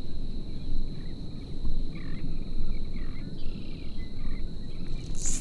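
Outdoor ambience: a steady high-pitched drone like an insect over low rumbling noise, with a few short chirps in the middle and a sharp click near the end.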